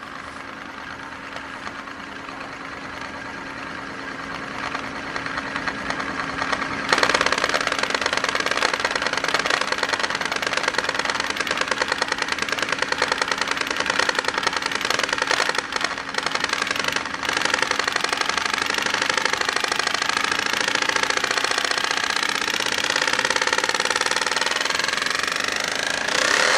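A machined metal spinning disc whirling down on its edge on a glass tabletop, like an Euler's disk: a continuous whirring rattle that grows louder as the disc wobbles lower toward flat, jumping up in loudness about seven seconds in, then cutting off suddenly near the end.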